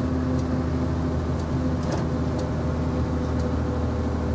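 Volkswagen 25.390 truck's diesel engine running steadily at a constant pitch, heard from inside the cab while the truck is driving.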